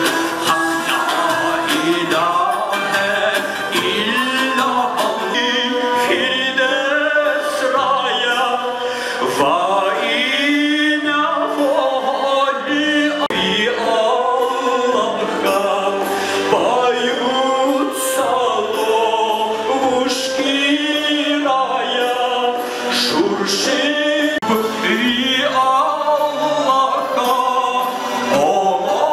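Man singing long, wavering melodic lines into a microphone over musical accompaniment.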